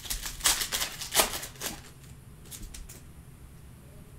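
Panini Mosaic basketball card pack torn open by hand: the wrapper crinkles and crackles for about two seconds, loudest a little past one second in. A few light clicks follow as the cards are handled.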